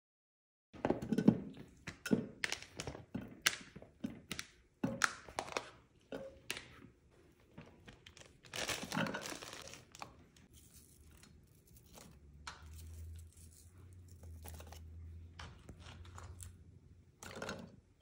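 Raw potatoes and vegetables dropped and set by hand into a slow cooker's crock around a roast: a string of short knocks and thunks, with a plastic bag of baby carrots crinkling about nine seconds in.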